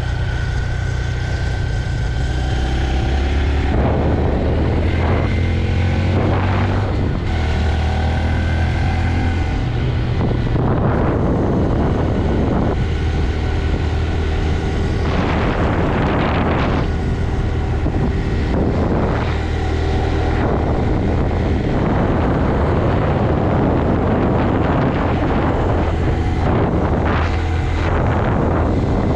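Stock 2025 Honda Grom's 125 cc single-cylinder engine running while ridden, its pitch stepping up and down with throttle and gear changes. Gusts of wind noise hit the microphone several times.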